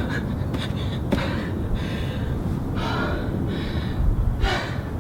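A woman breathing hard and gasping under exertion in the middle of a set of tuck jumps: about five heavy breaths from about a second in, with low thuds, the loudest just after four seconds in.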